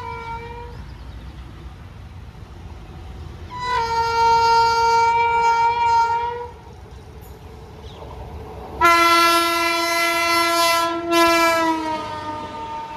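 WAP-7 electric locomotive's dual-tone horn honking: the tail of one note, then two long blasts of different pitch, the second lower and longer, with a brief break and its pitch sagging near the end. A low rumble of the moving train runs underneath.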